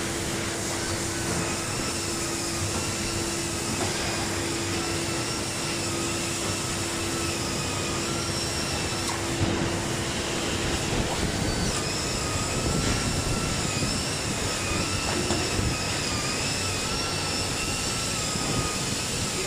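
Shoe-sole sanding robot running: a steady machine noise with a high whine that wavers slowly in pitch. A low steady hum drops out about eleven seconds in.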